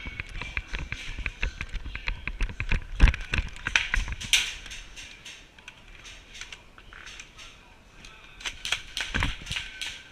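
Airsoft guns firing in rapid clicking bursts. The firing is heavy at first, eases off in the middle, then picks up again near the end.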